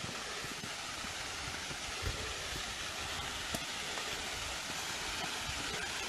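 Steady rushing hiss of a small forest waterfall, growing slightly louder, over a low irregular rumble of wind and handling on the walking microphone. A couple of small knocks sound about two and three and a half seconds in.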